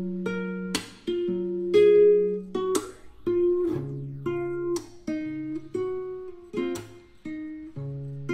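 Background music: a melody over a bass line, with a beat about once a second.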